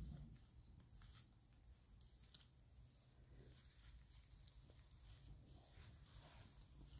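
Near silence: faint scattered rustles and light ticks over a low steady hum, with a soft low bump right at the start.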